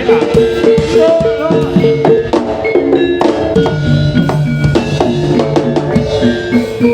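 Live East Javanese jaranan senterewe ensemble music: rapid drum strokes driving the beat under sustained melodic notes and pitched gong-chime tones.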